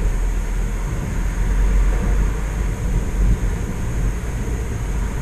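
Steady noise inside a parked car: a deep, fluctuating rumble under an even hiss.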